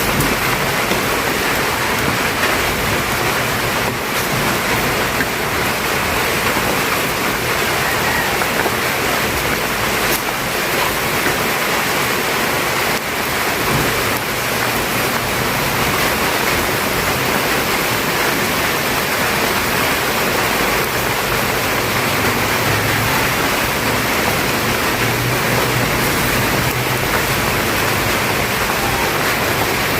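Pot of pork nilaga soup boiling hard, a steady hiss of bubbling water.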